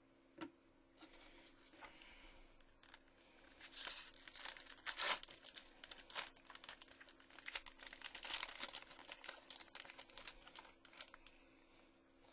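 A trading card pack wrapper torn open by hand, crinkling and tearing in a long run of sharp crackles, loudest about four and eight seconds in.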